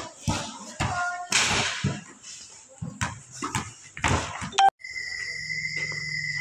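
Irregular knocks, taps and thuds, ending in a loud knock about four and a half seconds in. Then, after a sudden cut, a steady chorus of crickets chirring at night with one continuous high trill over a low hum.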